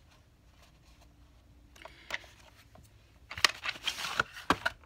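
Cardboard packaging of a boxed paint pan set being handled, with a few faint clicks about two seconds in. Near the end comes a burst of about a second and a half of crackling, rustling and sharp clicks.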